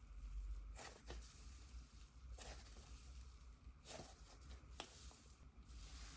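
Cloud-clay slime being stretched and pressed by hand, faint, with several brief crackling, tearing sounds as it pulls apart.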